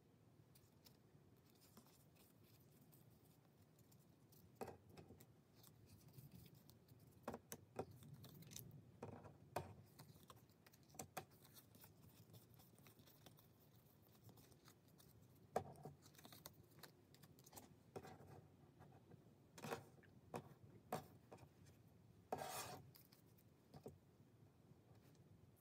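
Photocards being handled, shuffled and set down on a wooden tabletop: quiet rubbing and sliding of card against card and wood, with scattered light taps and clicks as cards are placed.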